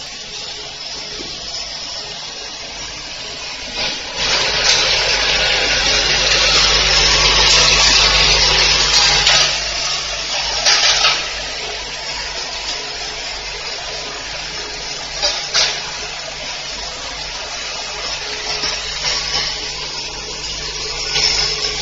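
Automatic flip-top cap closing machine running: many plastic caps rattle and clatter in its hopper and vibratory bowl feeder as a dense, steady hiss, louder for several seconds from about four seconds in, with brief louder surges, over a steady low machine hum.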